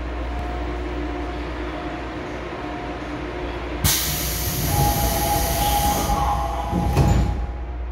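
Inside a Seoul Metro Line 3 GEC chopper subway car, a steady low hum with faint steady tones. About four seconds in, a loud sudden hiss of air cuts in and lasts about three seconds, with a clack near its end, then stops.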